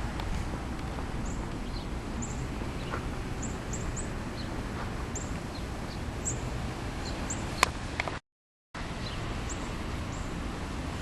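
Small birds chirping, with short, high, falling calls scattered irregularly over a steady outdoor hiss. A sharp click comes about three quarters of the way through, followed by a brief dropout of all sound.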